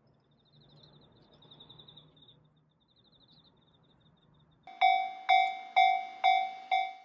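Japanese railway level crossing warning bell starting up, about two ringing dings a second, the 'kan-kan' signal that a train is approaching. It begins about two-thirds of the way in, after a few seconds of faint background with light high chirping.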